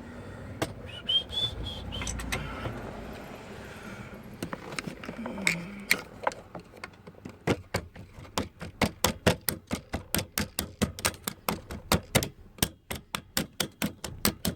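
Hand tool working a stubborn bolt on a steering column: scattered metal clicks and handling noise, then from about seven seconds in a fast, even run of sharp clicks, about five a second.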